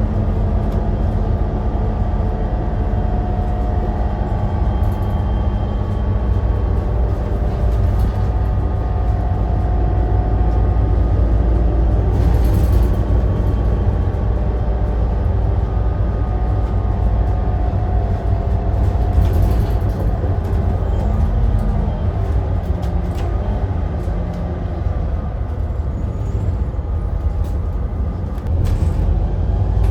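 Volvo B7RLE bus with a ZF EcoLife automatic gearbox running under way: a steady low rumble with faint whining tones that drift in pitch. Short hissing noises come about twelve seconds in, again at about nineteen seconds, and near the end.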